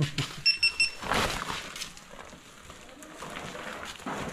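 Three quick, high electronic beeps about half a second in, over the rustle and knocks of sacks and a plastic crate being handled on a dial platform scale.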